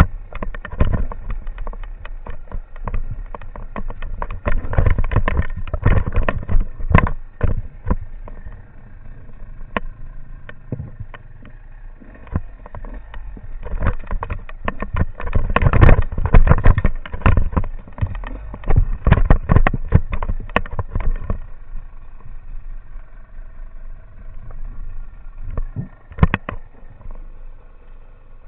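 Enduro motorcycle ridden downhill over rough, broken ground: the engine runs under a dense clatter of knocks and jolts, heaviest in the middle stretch and thinning out near the end.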